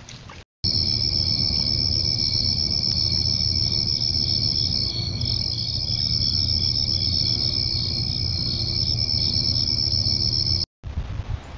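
Insect chorus at night: steady high-pitched trilling with a pulsing beat in it, over a low steady hum. It cuts in about half a second in and cuts off abruptly near the end.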